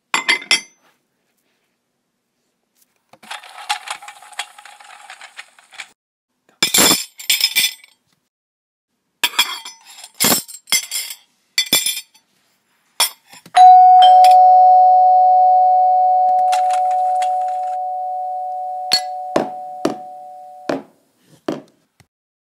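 A two-note ding-dong doorbell chime, a higher note then a lower one, ringing out slowly for several seconds before stopping. Before and around it, a scatter of short clicks and clatters and a brief rustle.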